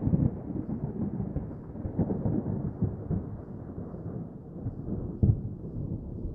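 Thunder rumbling on after a close crack, with sharper crackles about two seconds in and again near the end, the rumble gradually fading.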